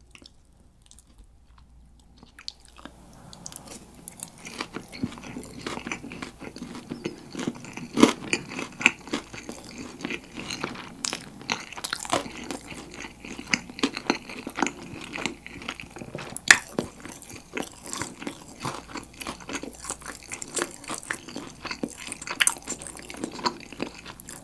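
Close-miked biting and chewing of dakgangjeong, sweet-spicy gochujang-glazed fried chicken pieces, with dense crackly crunching. It is quiet for the first couple of seconds, and the loudest crunches come about eight and sixteen seconds in.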